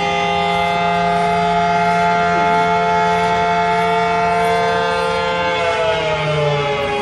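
Air raid siren sounding a steady wail of several tones at once, then starting to wind down, falling in pitch, about five and a half seconds in.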